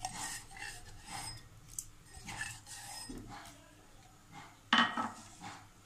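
Crushed spices being scraped out of a metal hamandista mortar into a pot: a run of light scraping and rubbing sounds, with one louder scrape or knock about five seconds in.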